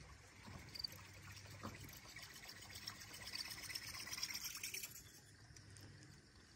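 Faint trickle of river water lapping, with a couple of light clicks in the first two seconds.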